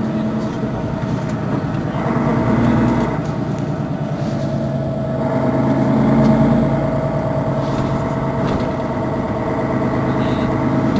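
Mercedes-Benz Citaro Facelift city bus engine idling steadily while stationary, with a low hum and a steady higher tone, swelling slightly a couple of times.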